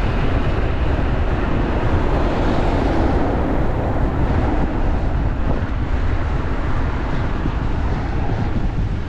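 Strong wind buffeting the microphone of a rider on a fast-moving electric scooter: a loud, steady rush with heavy low rumble.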